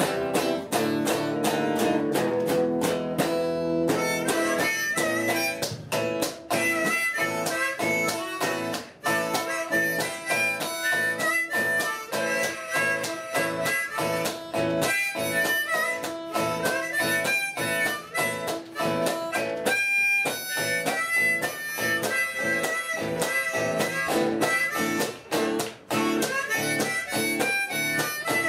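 Harmonica on a neck rack played over a steadily strummed red semi-hollow electric guitar, one musician playing both at once.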